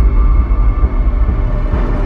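Dark, dramatic soundtrack music with a heavy low end, opening with a deep hit.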